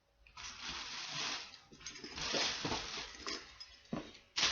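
Rustling handling noise as a pair of sneakers and their packing are handled, coming in several bursts, with a sharp click near the end.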